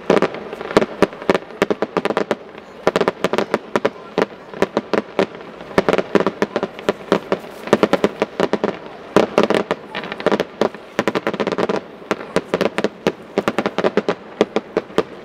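Fireworks display: a rapid, dense run of bangs and cracks from aerial shells bursting, coming in clusters with brief lulls between them.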